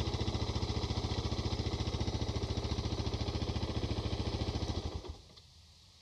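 Suzuki DR650's single-cylinder engine idling, an even, rapid pulse that cuts off about five seconds in.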